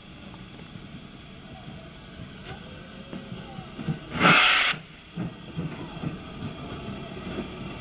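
BR Standard Class 5 4-6-0 steam locomotive standing with a low background rumble, then a loud burst of steam hissing for under a second about four seconds in, followed by a few fainter short bursts.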